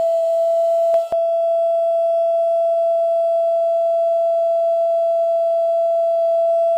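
Steady high-pitched whine of a jeweller's rotary handpiece spinning a small wheel against a gold ring, with a brief click about a second in.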